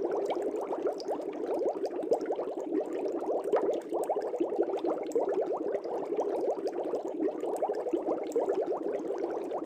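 Steady bubbling of air bubbles rising through aquarium water: a dense, unbroken stream of small bubble sounds in quick succession.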